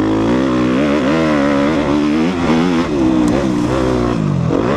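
Suzuki RM-Z250 dirt bike's single-cylinder four-stroke engine under changing throttle while being ridden on a trail. The pitch rises and falls again and again, then drops off near the end as the bike slows.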